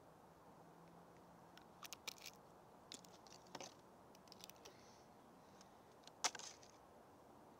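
Small plastic glitter containers clicking and rattling as they are handled: a few light clicks about two seconds in, more scattered through the middle, and one sharper click near the end, over near silence.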